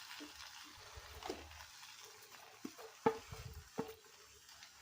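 Faint sizzle of a ginger and turmeric paste cooking in ghee in a pan on a low flame, being stirred, with a few light knocks and clicks as jaggery goes in.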